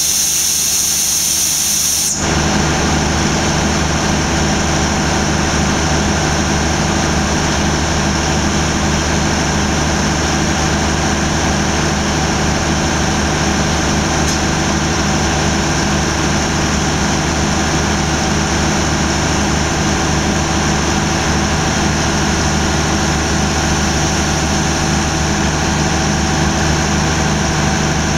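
Diesel locomotive idling steadily, a low engine drone with several steady tones, beside the coupling being worked. A loud hiss fills the first two seconds, then the engine note comes up and stays even.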